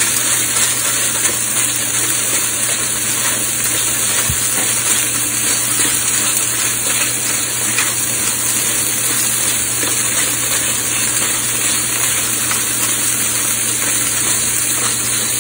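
Ribeye steaks sizzling steadily as they sear in a hot cast iron pan, with the faint crunch of a hand pepper grinder being turned over them.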